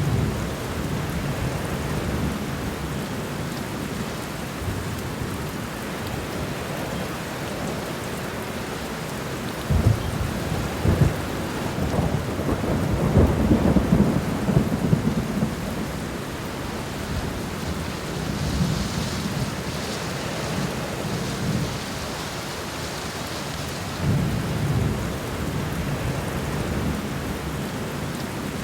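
Heavy rain falling steadily in wind, with deep rumbles that swell and fade, loudest about halfway through.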